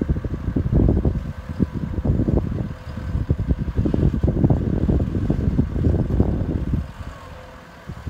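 Loader and tractor engines running in the distance, with irregular low buffeting over the microphone that eases off near the end.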